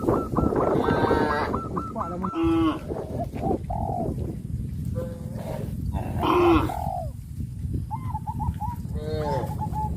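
Cattle mooing, several separate calls from the herd, mixed with short repeated calls of poultry.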